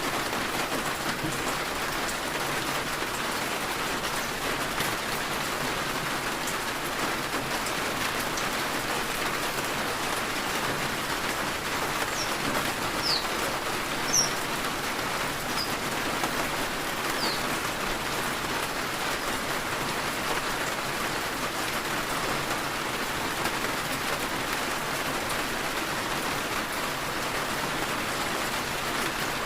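Steady rain falling, an even hiss of many drops. About halfway through, a few brief high chirps sound over it.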